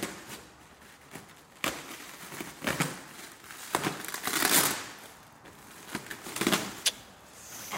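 Black plastic stretch wrap being pulled and torn off a pallet, crinkling in irregular bursts with a few sharp snaps.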